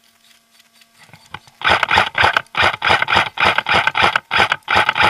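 Airsoft rifle firing rapid bursts of shots, beginning about a second and a half in, with two short breaks between bursts.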